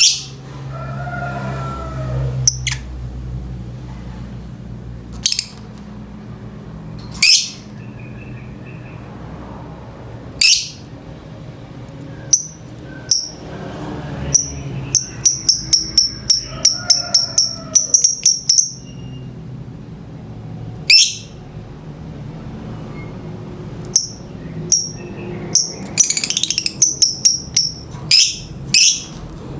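Lovebird (Agapornis) in breeding condition calling in sharp, shrill chirps: single calls spaced a few seconds apart, then rapid runs of chirps about halfway through and again near the end, over a steady low hum.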